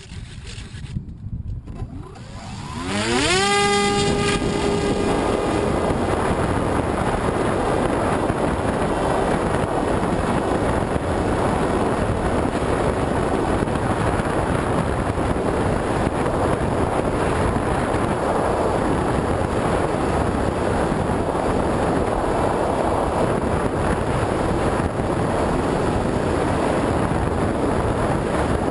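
Electric motor and propeller of an FPV Raptor radio-controlled foam plane spinning up with a rising whine about three seconds in, then a steady loud rush of propeller and wind noise as the plane flies, with wind buffeting the onboard GoPro's microphone.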